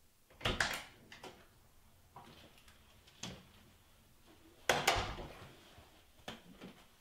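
A door being handled: a series of clunks and knocks, the loudest a double thud about five seconds in.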